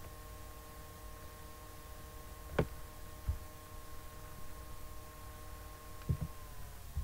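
A steady hum with several faint, even tones, broken by a few sharp clicks: one loud click about two and a half seconds in, a softer one a moment later, and a quick pair near the end, typical of computer mouse clicks while a screenshot area is selected.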